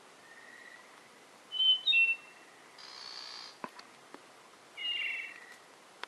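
Spotted nightingale-thrush singing: short phrases of clear whistled notes, one about a second and a half in and another near the end that ends in a rough trilled note. A hissing buzz comes about three seconds in, with a faint click just after it.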